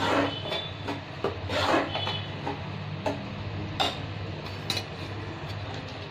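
A spatula scraping and stirring thick coconut masala and onions around a kadhai, in irregular strokes with occasional knocks against the pan, over a low steady hum.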